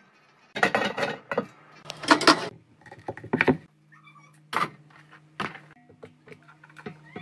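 Water poured into a speckled enamel roasting pan in several splashing bursts, then the roaster's metal lid lifted off with two sharp clanks. A steady low hum runs underneath.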